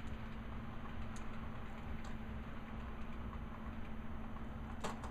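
A steady low hum over room noise, with a few faint ticks and one sharper click near the end.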